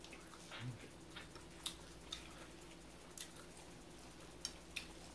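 Quiet eating sounds: wet mouth clicks and chewing of breaded fish sticks, heard as about half a dozen short, sharp clicks spread irregularly through the few seconds.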